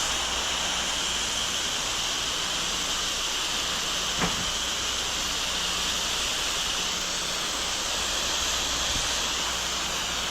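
8 GPM pressure washer spraying a steady jet through the wand, with the machine's engine running underneath; one short click about four seconds in.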